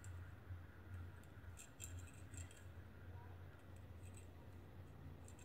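Near silence with a few faint clicks and ticks, mostly in the middle, from a metal crochet hook and yarn being worked by hand, over a low steady hum.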